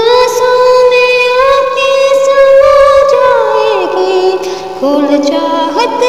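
A woman singing an old Hindi film song, drawing out long held notes with vibrato.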